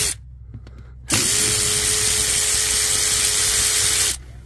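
Power ratchet running as it loosens a diesel injector hold-down bolt. A short burst stops just after the start, then a steady whirr of about three seconds begins about a second in.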